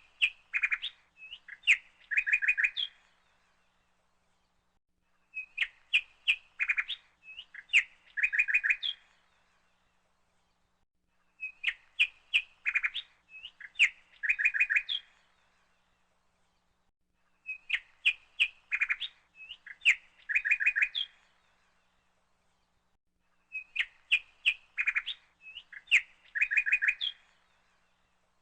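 Bird chirping and trilling in phrases of about three seconds, each the same as the last and repeating about every six seconds with short silences between, like a looped birdsong recording.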